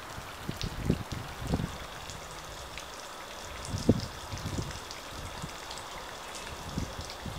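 Faint pond-side water sound: a steady light trickle with scattered small drips, and a few soft low thumps of wind on the microphone.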